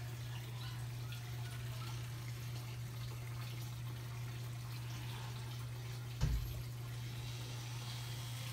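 Water trickling and dripping through the bamboo NFT channels of an aquaponic system, over a steady low hum. A single dull thump about six seconds in.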